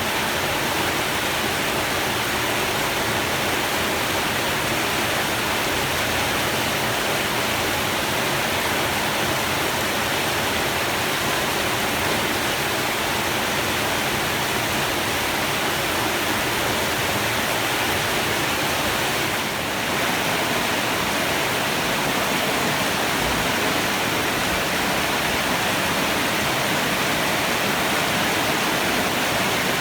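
Heavy rain pouring down steadily, a dense, even hiss of water with no thunder.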